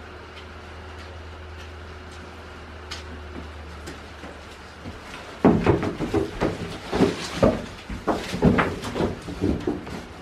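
Leafy branches rustling and knocking as they are carried into a wooden shed, with a run of irregular thuds and scrapes that starts about halfway in. Before that there is a steady low hum that fades out about a third of the way in.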